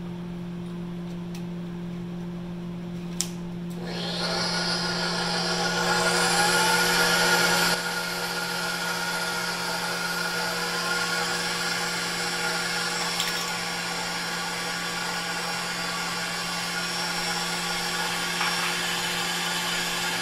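Electric stand mixer whipping egg whites with a wire whisk in a stainless steel bowl. After a click, the motor starts about four seconds in with a rising whine, runs louder for a few seconds, then drops abruptly to a steady, lower running sound as the whites froth.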